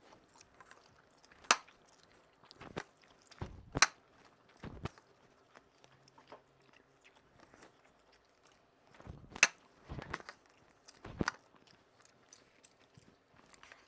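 Two people eating steamed momos in a race: chewing and biting sounds, with scattered short knocks and clicks, a few of them sharper, every second or few seconds.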